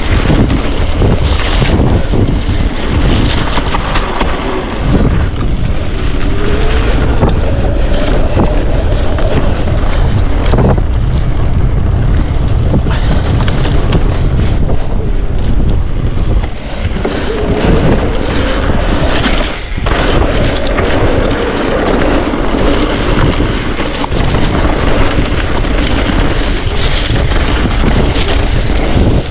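Wind rushing over the microphone with the noise of a mountain bike riding a wet, puddled trail, loud and steady with a couple of brief lulls.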